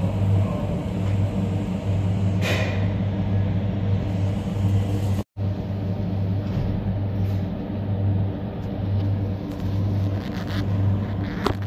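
Steady low machine hum that throbs in uneven pulses, with a brief cut to silence about five seconds in.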